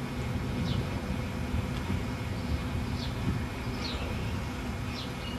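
Steady low outdoor rumble, with a few short, high bird chirps spread through it.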